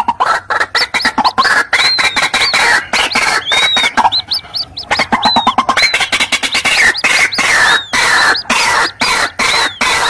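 White-breasted waterhen chorus mixing chicks and adults: a rapid, dense run of harsh clucking notes with high, arched peeping calls repeating over it. The clucking thins briefly in the middle, leaving mostly the high arched calls.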